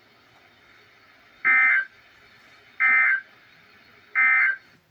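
Three short bursts of buzzy EAS/SAME digital data tones, evenly spaced about a second and a half apart: the end-of-message code that closes a weather radio warning broadcast.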